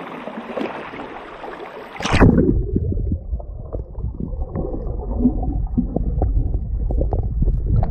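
River water splashing at the surface, then a loud splash about two seconds in as the camera goes under. After that the sound is muffled underwater: a low rumble with many small clicks and gurgles.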